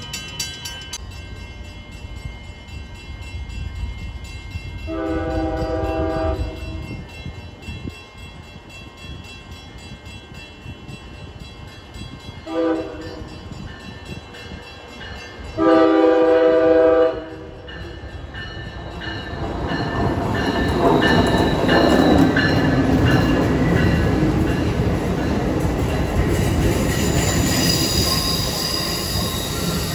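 An approaching Amtrak passenger train sounds its horn three times: a long blast, a short one, then a long and loudest one. The train then runs past close by, a rising rumble of wheels and cars, with a thin high wheel squeal starting near the end.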